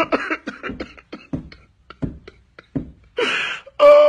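A woman making short, irregular breathy and clicking mouth sounds, several a second, without words, then two longer voiced sounds near the end.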